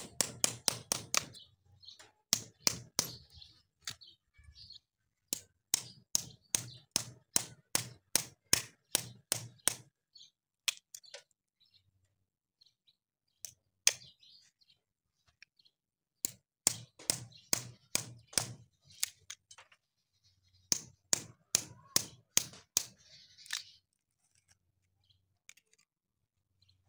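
A hammer tapping the back of a hoof knife to drive the blade into a cow's hoof horn. The sharp taps come in runs of about three a second, with pauses between the runs.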